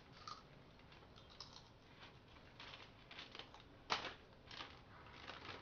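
Faint, scattered crackles and crinkles of a plastic snack packet being handled and opened, with one sharper crackle about four seconds in.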